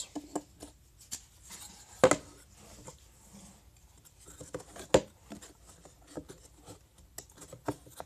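Pre-cut wooden beehive frame parts being pushed together by hand: light wooden clicks and knocks, with two sharper knocks about two and five seconds in.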